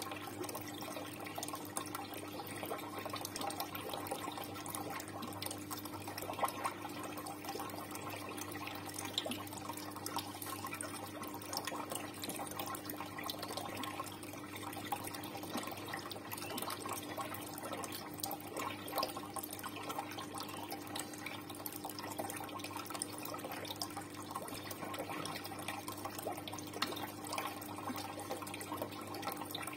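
Steady running and trickling water with many small drips and splashes, over a steady low hum.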